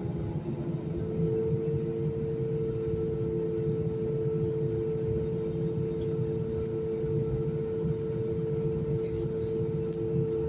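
Airbus A320-200 jet engines running: a steady hum of two tones over a low rumble, the higher tone rising a little about a second in.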